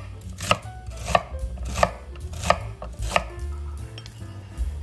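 Chef's knife chopping a celery stalk on a bamboo cutting board: five sharp strikes about two-thirds of a second apart, stopping a little past the halfway point.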